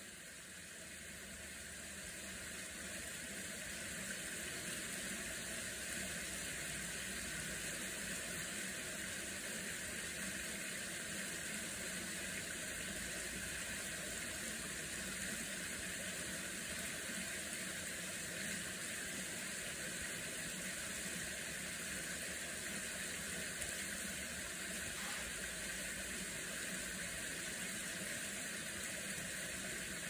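Shallow stream water flowing over rock ledges in a gorge: a steady rushing trickle that grows louder over the first few seconds and then holds even.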